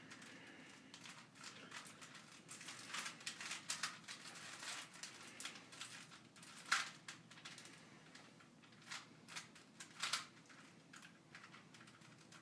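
Rubik's cube being twisted by hand: faint, irregular clicking of its plastic layers turning, with a louder click about seven seconds in and another about ten seconds in.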